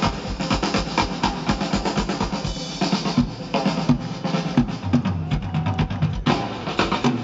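Live drum kit solo: fast snare and tom strikes over a steady bass drum beat, with a louder run of hits resuming about six seconds in.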